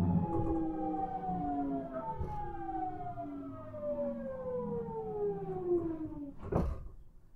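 Nankai 1000 series train's GTO inverter whining as the train brakes to a stop, several tones sliding steadily down in pitch with a step change about two seconds in. A short burst of noise comes about six and a half seconds in, and then the whine is gone.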